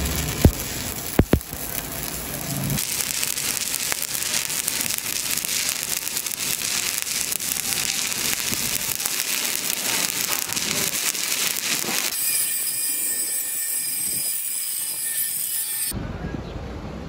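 Stick (shielded metal arc) welding on a steel pipe joint: the coated electrode strikes with a few sharp pops, then the arc crackles and sizzles steadily as the bead is run. The crackle turns hissier around twelve seconds in and stops near the end.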